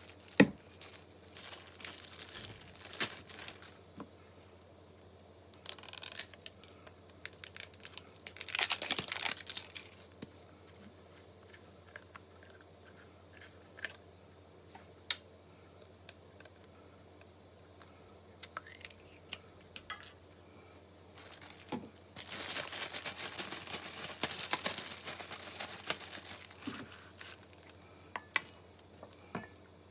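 A plastic sauce bottle being unsealed by hands in a plastic glove: crinkling and tearing of its wrapping and foil seal, with scattered clicks from the cap. The loudest tearing comes in two bursts, about a third of the way in and again about three quarters through.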